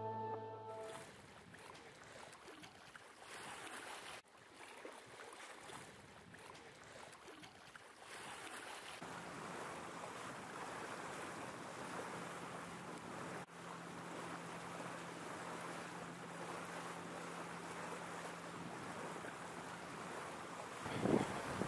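Wind and water rushing along a sailboat's hull while under sail, steady and fairly quiet. A low steady engine hum joins for about ten seconds in the middle.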